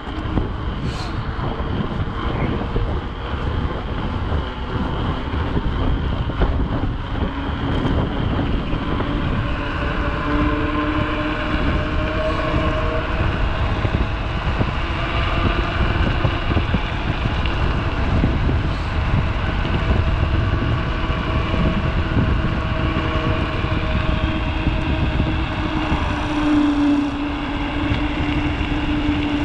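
Wind rushing over the microphone on a fast mountain-bike descent, with the hum of Schwalbe Nobby Nic knobby tyres rolling at speed. The humming tone comes in after a few seconds and is strongest near the end.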